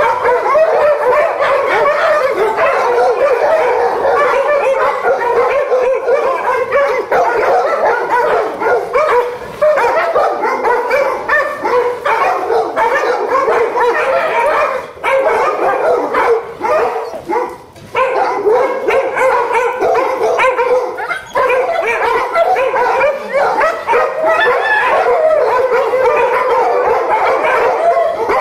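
Several pit bulls whining and yipping over one another, with some barks, in a continuous excited chorus that thins briefly a little past halfway.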